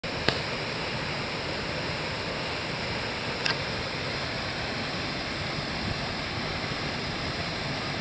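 Waterfall pouring down a rock chute into a pool: a steady rush of falling water. A sharp click sounds just after the start and a fainter one about three and a half seconds in.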